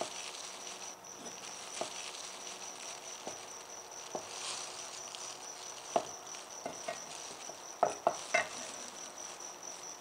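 Knife slicing cooked chicken liver on a thick wooden chopping block, the blade knocking sharply on the wood every second or two, with three quick knocks near the end.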